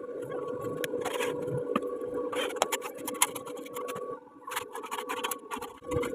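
Irregular bursts of scraping and rattling over a steady hum.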